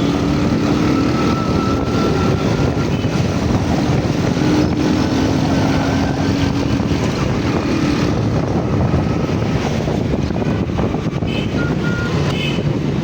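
Road travel noise from a moving vehicle: a steady rumble of engine and traffic mixed with wind buffeting the microphone.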